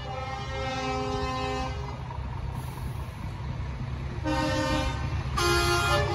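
Truck multi-tone air horns sounding a chord of several steady notes for the first couple of seconds, then two shorter blasts near the end, over the low rumble of truck engines driving by at slow speed.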